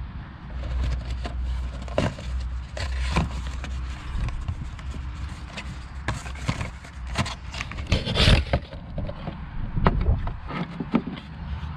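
Hands and tools handling parts: a string of irregular clicks and knocks with rubbing and scraping, over a low steady rumble.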